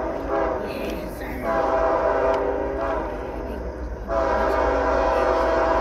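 CSX freight locomotive's air horn sounding as the train approaches: a chord of several steady notes that eases off and swells again in a series of blasts, with a long loud blast starting about four seconds in. A steady low rumble runs underneath.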